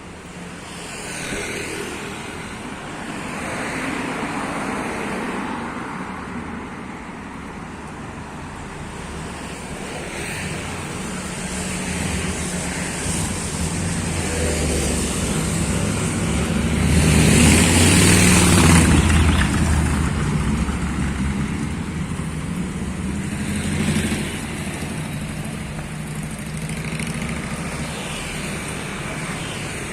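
Street traffic: motor vehicles running and passing, with a steady engine hum under it. The loudest vehicle passes close a little past halfway, and another swells briefly near the end.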